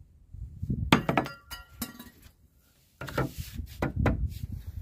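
Small pieces of rusty sheet steel clinking with short, bright rings as they are handled and set down, several light strikes about a second in. Near the end comes a longer spell of scraping and knocking as a steel sheet is moved on the hard surface.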